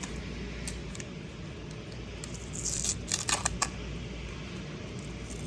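Baseball cards being handled: a single sharp click, then a short flurry of card flicks and rustling about two and a half seconds in, over a steady low room hum.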